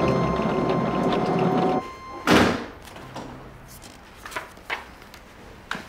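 Soundtrack music with held notes stops about two seconds in. A single loud thump follows, then a quiet room with a few faint rustles and clicks of magazine pages being handled.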